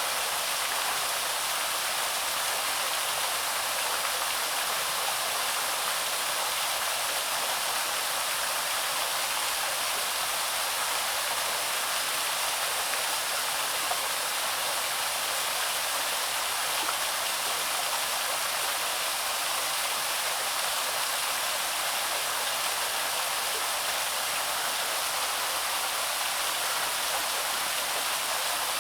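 Waterfall on the Loch stream, water falling and splashing in a steady, unbroken rush.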